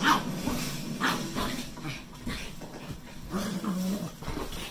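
A dog making a run of short, repeated sounds, with a longer held note about three and a half seconds in.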